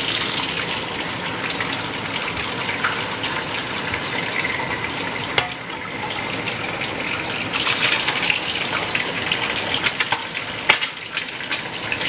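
Food frying in a pan: a steady sizzle with irregular crackles and pops, a few sharper pops near the end.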